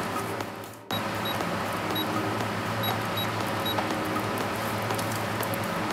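Supermarket background ambience: a steady low hum with faint music and short high beeps now and then. The sound fades down and cuts back in abruptly about a second in.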